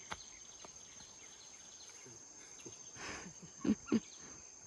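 Insects droning steadily at one high pitch, with two short, louder sounds breaking in about three and a half and four seconds in.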